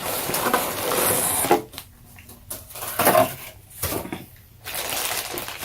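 Anime figure's packaging being handled and opened: bursts of scraping and rustling, a longer one at first, then shorter ones about three seconds in and near the end.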